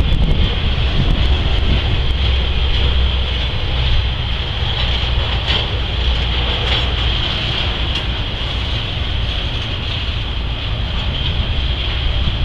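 Norfolk Southern autorack and intermodal freight train rolling past slowly as it comes to a stop: a steady low rumble of the cars with a constant high-pitched tone above it and a few faint clicks.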